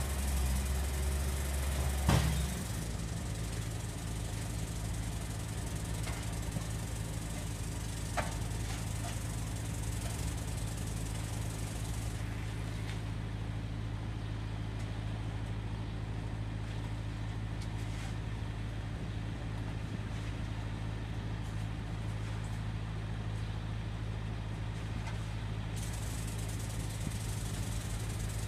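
Heavy construction machinery with its engine running steadily. About two seconds in there is a sharp clank and the deepest part of the drone stops. A lighter knock follows some seconds later.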